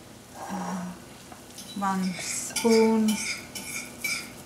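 A plastic spatula scooping soft cheese filling out of a ceramic bowl and scraping it onto a ceramic plate, with light clinks against the dishes, loudest in the second half. Low voices murmur briefly a few times.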